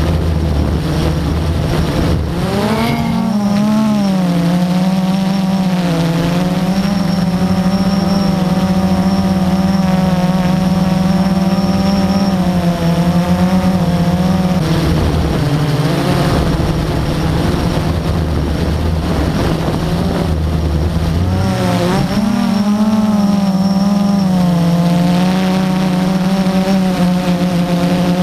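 A multirotor drone's motors and propellers whir steadily, heard from on board. The pitch wavers and swoops twice as the motors work against gusty wind. A low rumble of wind on the microphone comes and goes.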